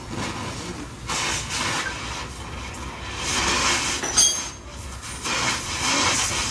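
Rough, hissing strokes of hand work on metal, each about a second long, with a short squeak a little past the middle.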